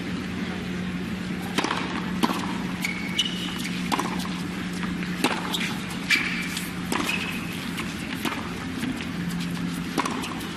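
A tennis rally: irregular sharp knocks of racket strikes and ball bounces about once a second or so, with short high shoe squeaks on the court, over a steady low hum.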